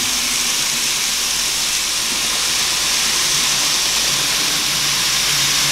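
N-gauge model train running on the layout's track: a steady hissing rattle of wheels on rail with a faint motor hum underneath.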